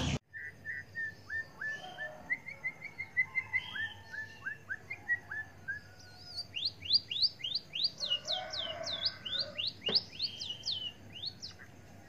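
Caged songbird singing a string of whistled chirps: short falling notes at first, then faster, higher sweeping notes in the second half, with one sharp click near the end.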